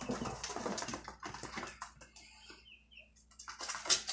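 Quails scratching and fluttering in dirt and dry grass, a dense rustle with pecking taps, easing off after about two seconds. A few short soft high peeps follow, then a few sharp taps near the end.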